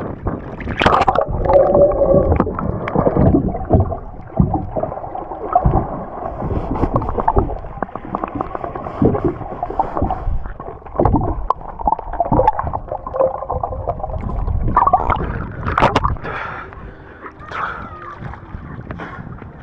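Muffled water gurgling and sloshing from a camera dipped below the sea surface, broken by irregular knocks and rubbing as a gloved hand scrubs a boat's hull underwater.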